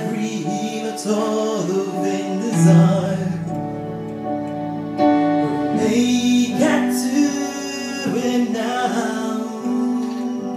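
Gospel worship song in rehearsal: sustained instrumental chords with a voice singing a wavering melodic line over them.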